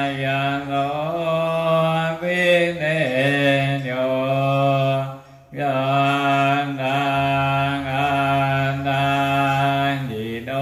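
Theravada Buddhist chanting: a voice intoning long, mostly level held tones that step up and down in pitch, with a short pause for breath about five seconds in.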